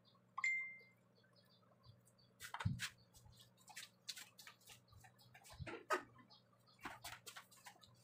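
A single clink against a stainless steel bowl, ringing briefly and fading, followed by scattered faint taps and clicks of eating at the table.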